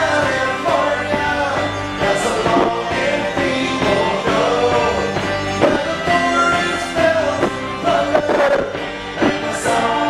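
A man singing while accompanying himself on a banjo in sawmill tuning, its plucked strings sounding under the sung melody.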